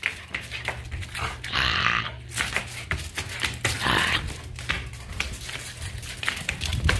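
Small black dog playing on concrete: its claws clicking and scuffing as it runs and turns, with a few short breathy huffs from the dog.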